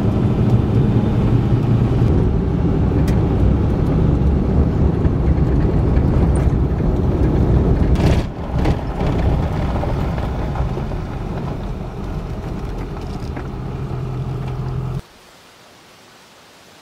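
Vehicle driving on a gravel road, heard from inside the cab: a steady low engine rumble with tyre and road noise. It cuts off suddenly about fifteen seconds in, leaving a faint outdoor background.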